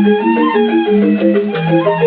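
Instrumental music from an electronic keyboard with an organ-like tone: a quick melody of short held notes, stepping up and down over a lower line.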